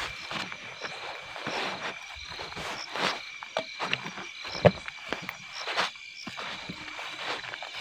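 Steady night chorus of insects and frogs calling, with footsteps through grass and brush and one sharper knock a little past halfway.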